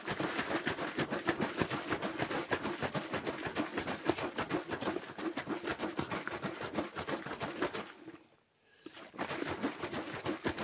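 Passion fruit pulp and seeds shaken hard in a lidded plastic jar, used as an improvised blender to work the pulp off the seeds: a fast, continuous rattle. It stops for about a second around eight seconds in, then starts again.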